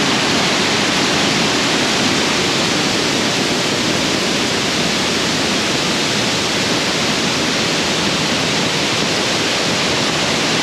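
Waterfall in monsoon flow, its falling water making a loud, steady rush.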